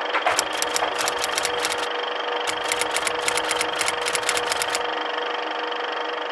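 Film projector sound effect: a steady mechanical whirr with runs of crackling clicks, like old film running through the gate.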